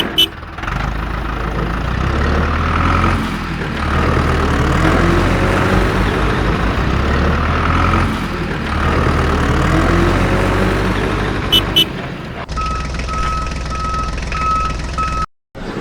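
A heavy vehicle engine running, swelling and easing in waves every few seconds. About three-quarters of the way through it drops to a lower hum under a steady, rapidly repeating high beep like a reversing alarm, then cuts off suddenly.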